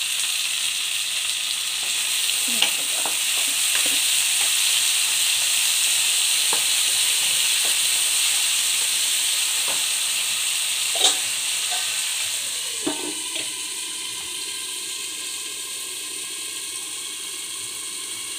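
Chopped tomatoes and onions sizzling in hot oil in a kadai, with a spatula scraping and clicking against the pan now and then. About thirteen seconds in the sizzle turns quieter and muffled as a steel lid covers the pan.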